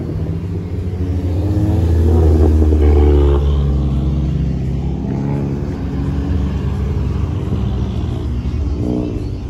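Car engine revving hard, loudest about two to three seconds in, then easing back and running on steadily.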